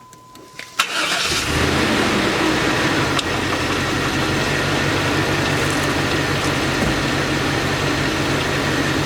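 A steady beep stops as a vehicle engine cranks and catches just under a second in, then settles into a steady idle. This is the first start after an oil change, with fresh oil just put in.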